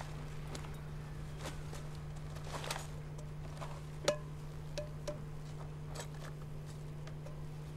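Rubbish being picked through: scattered light crackles and clicks of paper, plastic and debris being handled, with one sharper clink about four seconds in, over a steady low hum.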